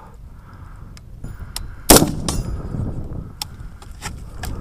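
A single loud rifle shot about two seconds in, followed by a low rolling echo, with several fainter sharp cracks before and after it.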